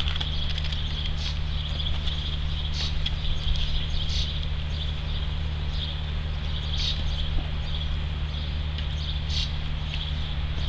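Outdoor ambience: a steady low hum and a faint steady high hiss, with a few brief high clicks or chirps scattered through.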